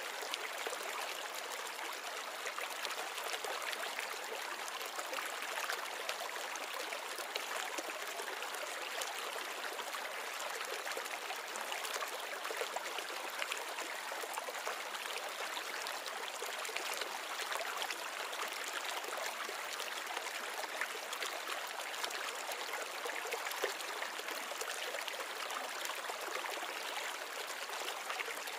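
Water trickling steadily in a nano reef aquarium, a continuous even splashing hiss with no breaks.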